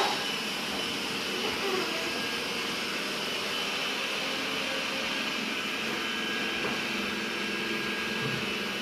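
Xiaomi robot vacuum cleaner running steadily, a constant whir of suction and brush motors with a fixed high whine.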